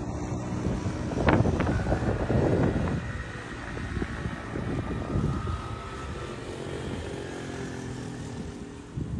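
An engine running with a steady low drone and a faint higher whine over it, loudest in the first three seconds and then easing off.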